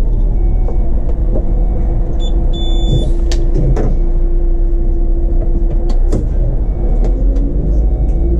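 Solaris Urbino 18 articulated city bus running, heard from the driver's cab: a steady low rumble with a held whine through the middle and a few short knocks and rattles.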